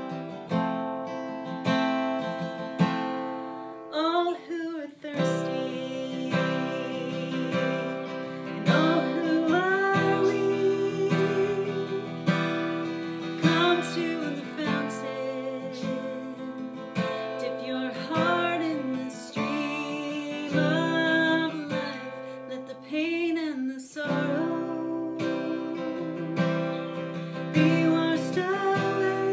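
Acoustic guitar strummed in steady chords, with a woman singing a worship song over it from about four seconds in.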